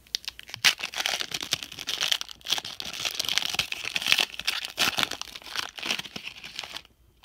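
Plastic trading-card pack wrapper crinkling and tearing as the pack is opened by hand, a dense crackle that stops abruptly near the end.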